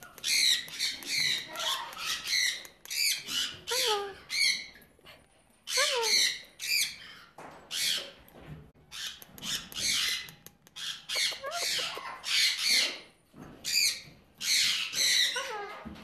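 White cockatoo squawking over and over, a run of short calls a few per second, broken by brief pauses about five seconds in and again near the end.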